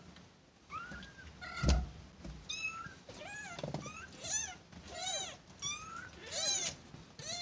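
Kittens mewing over and over in short, high calls that rise and fall, calling for their mother to nurse. A single thump about two seconds in.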